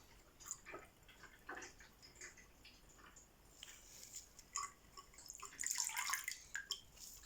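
Faint drips and small splashes of water in a sink, with a short, denser burst of splashing about six seconds in.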